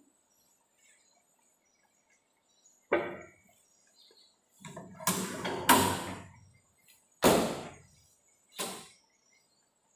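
Paint cans being set down and clamped on the metal plate of a paint shaker, and the shaker's door being shut: a string of separate knocks and clunks. The first comes about three seconds in, a close cluster follows around five to six seconds, and two more come near the end.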